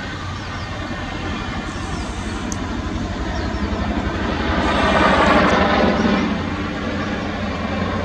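CH-47J Chinook tandem-rotor helicopter flying past low, a fast, steady rotor chop with engine noise that swells to its loudest about five seconds in and then eases off.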